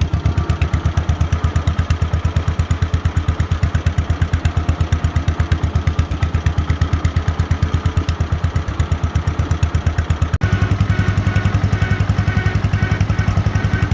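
1948 John Deere Model M's two-cylinder engine running under load with a steady, even beat as the tractor drives down the road in third gear. About ten seconds in the sound breaks off abruptly and picks up again slightly louder.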